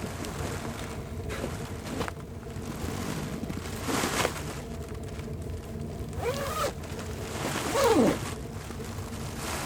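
Wind blowing across the microphone, with a short rush about four seconds in and two brief squeaky glides that rise and fall, about six and eight seconds in.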